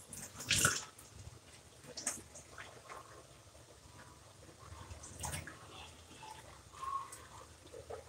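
Water from a kitchen faucet splashing and dripping onto a wet hair bundle in a stainless steel sink as it is rinsed out, fairly faint, with a few sharper splashes.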